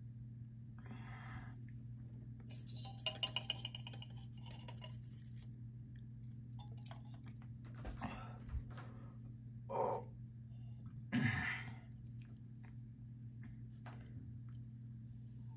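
A person sipping and swallowing sparkling water, with a cluster of light clinks about three seconds in and two short mouth sounds near the end, over a steady low hum.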